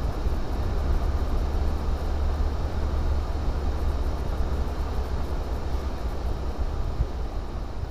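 Renault Clio 1.9 diesel running at speed on a race run, heard from inside the cabin: a steady, heavy low rumble with road and wind noise.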